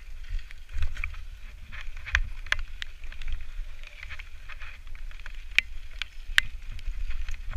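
Mountain bike descending a rough gravel singletrack: tyres crunching over stones and the bike clattering, with a string of sharp clacks, the loudest about two seconds in and again near six seconds, over a steady wind rumble on the microphone.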